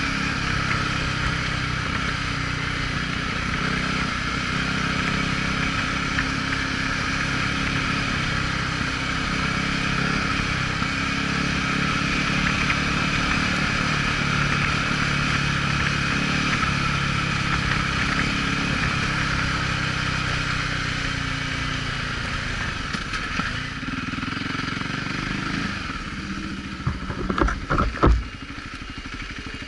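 Voge 300 Rally's single-cylinder engine running steadily at riding speed, with wind and road noise over it. The engine note eases off in the last few seconds, and a short cluster of loud knocks comes near the end.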